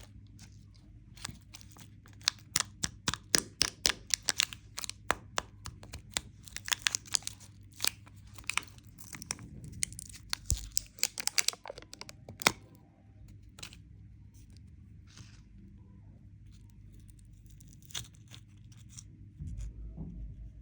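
Candy wrapper being crinkled and torn: a dense run of sharp crackles for about twelve seconds, then only a few scattered crackles.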